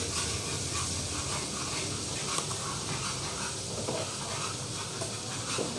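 Wet spice masala sizzling in hot oil in a frying pan, making a steady hiss as it is stirred with a spatula.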